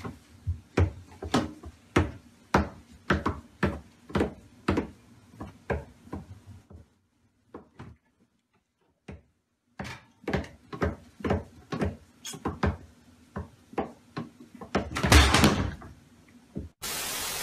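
Repeated knocks and thumps, about two a second, from a baby moving about inside a wooden kitchen base cabinet, with a pause of a few seconds in the middle. A louder, longer clatter comes near the end.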